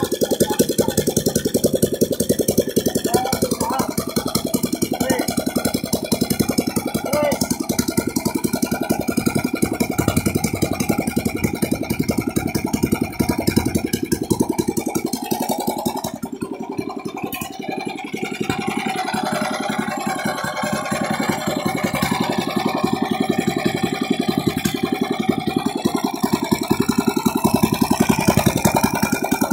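New 18 hp, 460 cc single-cylinder gasoline engine running on a test, with no load on its bare output shaft. It runs with an even, rapid firing beat, briefly quieter about sixteen seconds in before picking back up.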